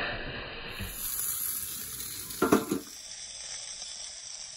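Chicken wings sizzling over hot charcoal on a cast iron Lodge Sportsman's Grill, with a short loud clatter about two and a half seconds in.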